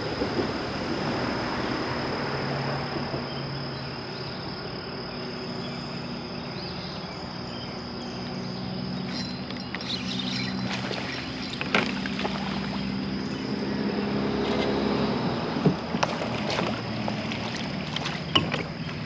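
Kayak and fishing-gear noise on the water: a steady low hum and a high steady tone, then scattered clicks, knocks and small splashes in the second half as a bass is fought and reeled in to the kayak on a spinning rod.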